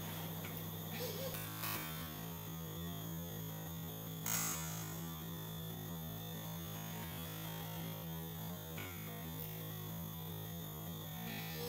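Steady low electrical hum under faint room noise, with one brief sharp noise about four seconds in.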